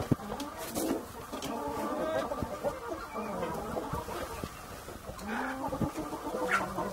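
Domestic hens clucking, with many short calls overlapping and a brief higher call near the end.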